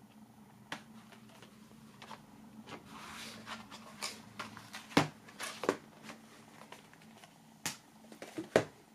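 Cardboard and plastic DVD box-set packaging being handled: a fold-out digipak folded shut and moved about. Light rustles and clicks, with several sharper knocks as it is set on the wooden tabletop.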